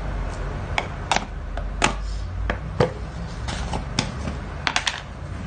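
Spice jars being handled and tapped over a bowl: about a dozen sharp, irregular clicks and taps, some in quick pairs, over a low steady rumble.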